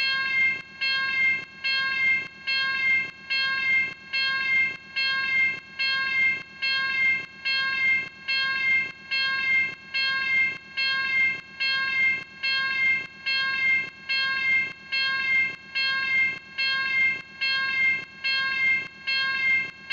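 Turkish railway level crossing warning bell ringing, one ringing strike about every second, each dying away before the next, repeating steadily.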